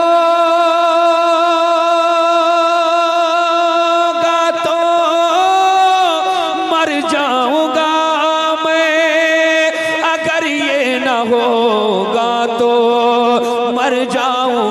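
A solo male voice singing an Urdu naat into a microphone, with no instruments: one long note held for about five seconds, then ornamented runs that wander up and down and sink lower in pitch about ten seconds in.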